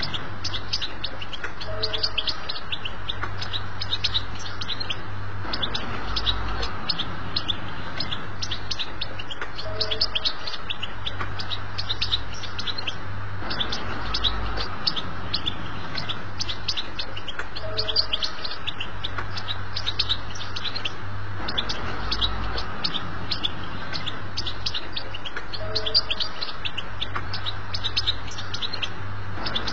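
European goldfinch song: a fast, unbroken twitter of sharp chirps, the twittering style played to tutor young goldfinches. The same passage repeats about every eight seconds.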